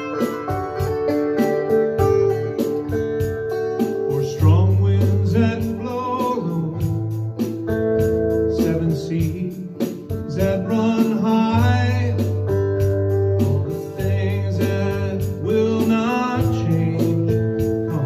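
A man singing a folk ballad to his own strummed Taylor electric guitar. The guitar chords come first, and the voice comes in about four seconds in.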